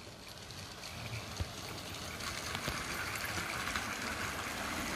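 OO-gauge Bachmann GWR Manor model trains running on a garden railway: a steady rolling hiss of wheels on track that grows louder from about two seconds in as a train comes closer.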